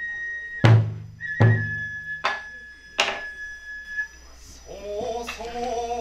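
Kagura festival music: four sharp drum strikes, the first two deep and booming, under a held high flute note, then a chanted singing voice starting about four and a half seconds in.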